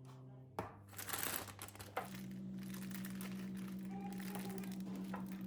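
Crinkling, as of material being handled, for about a second and a half after a sharp click; another click follows, then a steady low hum.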